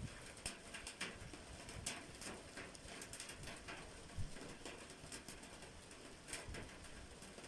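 Rain during a thunderstorm, with drops tapping irregularly close by over a faint hiss; one tap a little past four seconds in stands out.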